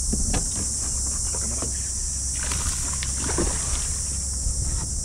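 Several knocks and bumps of gear against a plastic kayak hull, with a brief rush of noise about two and a half seconds in, over a steady high insect buzz and a low wind rumble.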